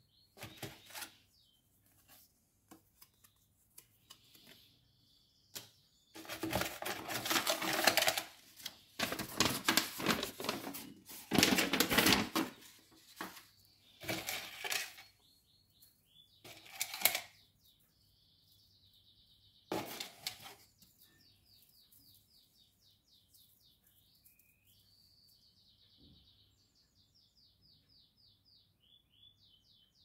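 Cardboard box and paper rustling and rattling in bursts through the middle as the parcel is unpacked and the wire-strung plastic bird leg rings are lifted out. Canaries sing faintly in the background, with quick trills near the end.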